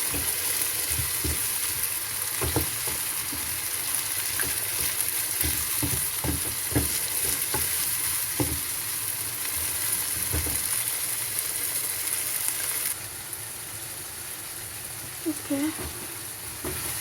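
Onions, fresh tomatoes and hot pepper sizzling in hot oil in a pan, with a spoon knocking against the pan as the sauce is stirred. About two-thirds of the way through, the sizzle turns quieter and the knocking stops.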